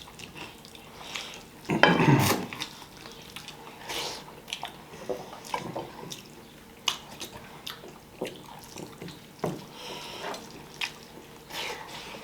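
Mealtime eating sounds: scattered clinks and scrapes of dishes and utensils, with a louder clatter about two seconds in.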